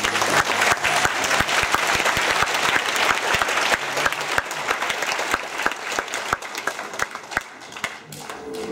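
Concert audience applauding at the end of a song, dense clapping that thins out and dies down near the end.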